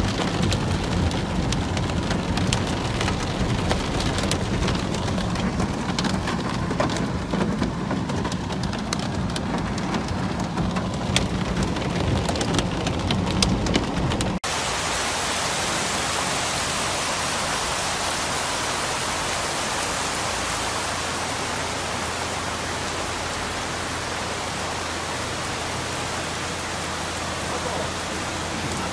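Heavy rain and hail drumming on a car's roof and windshield, heard from inside the car as a dense patter full of sharp ticks. About halfway through it cuts to the steady, even hiss of heavy rain over a flooded street.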